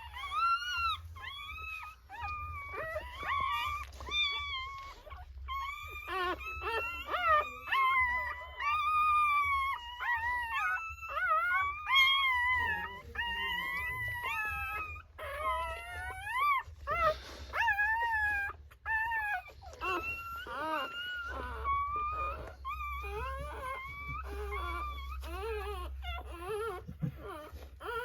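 Newborn Rottweiler puppies crying and whimpering: a continuous run of short, high, rising-and-falling squeals, several at once.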